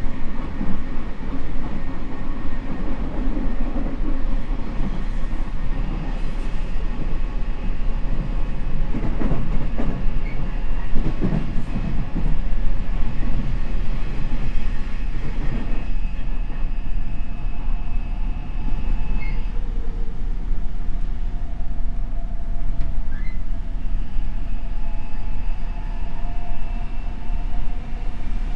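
Odakyu 5000 series electric train with a Mitsubishi SiC VVVF inverter, heard from inside the car running between stations: a steady rumble of wheels on rail. From about halfway through, faint steady whining tones join it.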